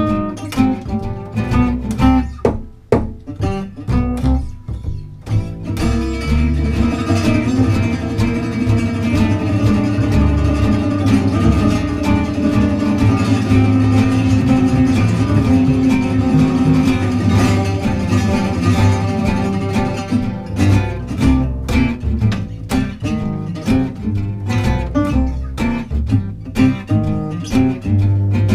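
Live acoustic trio of lead guitar, rhythm guitar and upright bass playing an instrumental tune. The choppy plucked and strummed rhythm fills out into a fuller, more sustained passage from about six seconds in until about twenty seconds, then turns choppy again.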